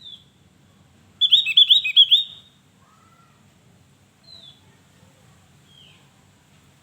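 Opior Jawa (Javan grey-throated white-eye) singing: a loud, quick run of about six high notes about a second in, then single down-slurred high call notes spaced a second or more apart.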